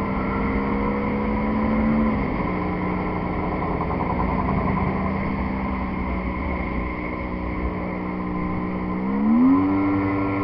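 Jet ski engine running under way, with water rushing beneath the hull. Its pitch drops slightly about two seconds in, holds steady, then rises sharply near the end as the throttle opens.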